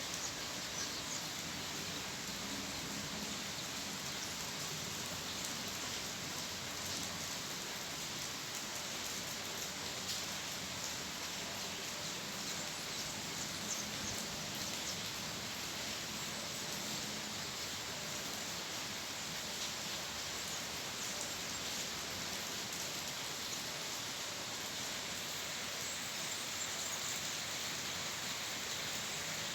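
Steady rain falling: an even hiss with scattered small drop ticks and no thunder.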